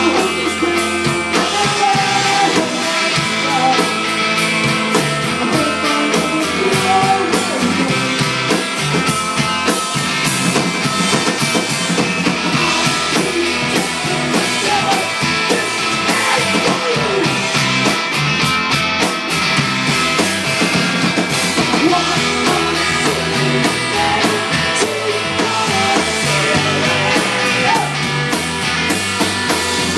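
Rock band playing a song, loud, with no break.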